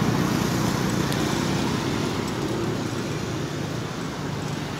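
Steady road traffic noise, a low rumble of vehicles with no distinct events.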